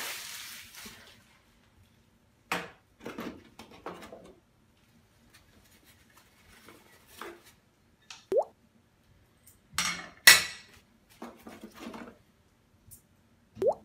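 Packaging being handled: plastic bags and paper wrapping rustling and crinkling in short bursts, and stainless faucet parts being lifted and set down. The loudest rustle comes about ten seconds in, and two short rising pops are heard, one past the middle and one near the end.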